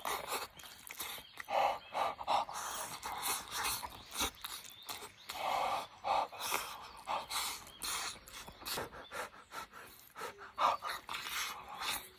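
Close-miked eating sounds: wet chewing and mouth clicks, slurps and short breathy puffs of breath while eating saucy hamburger steak with chopsticks.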